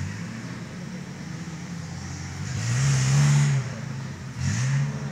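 Suzuki off-road jeep's engine running and being revved: the pitch rises and falls about halfway through, dips, then climbs again near the end.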